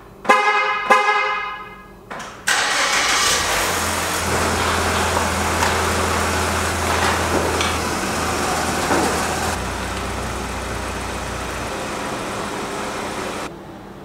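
A pitched electronic tone for about two seconds, then steady mechanical running noise as the garage door opener raises the door and the car's engine runs while it is driven out. The noise drops off suddenly near the end.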